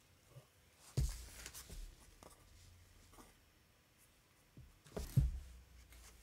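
Handling sounds of a plastic doll stand being fitted to a fashion doll: two knocks with a dull thud, about a second in and again near the end, with faint clicks and rustling between.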